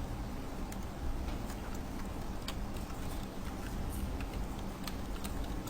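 Scattered, irregular clicks of computer keyboard keys over a low steady hum.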